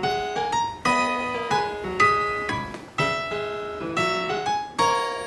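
Background piano music: a melody of single struck notes, each ringing and fading, about two notes a second.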